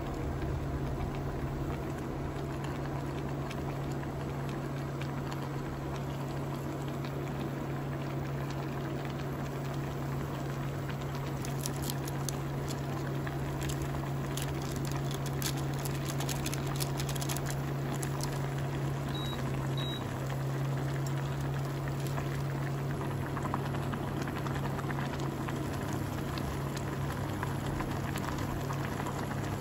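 Soup bubbling at a boil in a small stainless steel pot on an induction cooktop, over the cooktop's steady low hum. A run of sharp clicks and taps in the middle as tofu and soup powder go into the pot.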